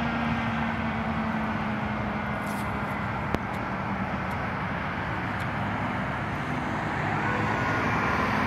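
Highway traffic noise: a fire engine's engine hum fading as it drives off, then a car's engine and tyres getting louder near the end. One sharp click a little over three seconds in.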